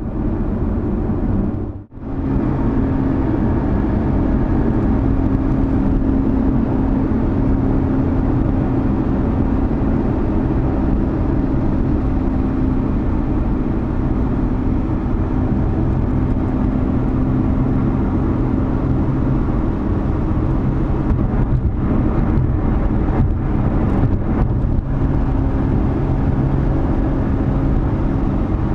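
2020 Lotus Evora GT's supercharged 3.5-litre V6 running at a steady cruise with road noise, a constant engine hum holding one pitch. The sound drops out briefly about two seconds in.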